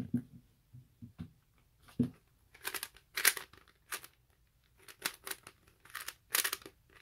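A Lego-brick 3x3 speed cube being turned quickly by hand: bursts of plastic clacking and scraping as its layers turn, several a second. A few soft knocks come in the first two seconds.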